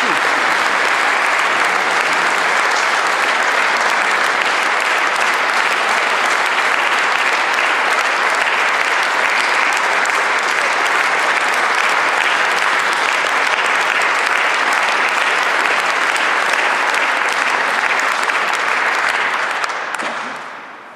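Concert audience applauding steadily, the clapping dying away near the end.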